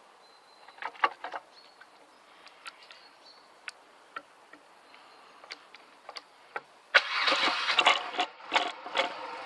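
Scattered light clicks and knocks from the controls being handled, then about seven seconds in the BMW R100GS's air-cooled boxer twin engine starts, firing up loud and uneven as it catches.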